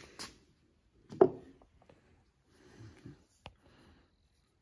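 Handling noises on a wooden workbench as hand tools are picked up and moved: a loud clunk about a second in, soft rustling, then a sharp click.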